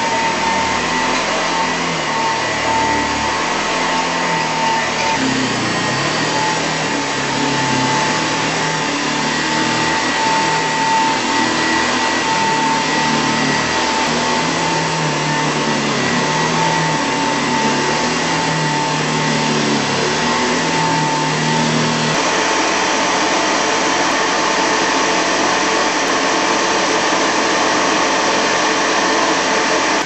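Hoover Model 825 upright vacuum cleaner from about 1936 running steadily on carpet, its motor giving a constant high whine over a loud rushing noise.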